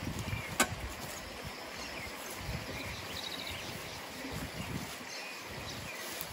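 Outdoor rural ambience with an uneven low rumble and faint high chirping. A single sharp click about half a second in.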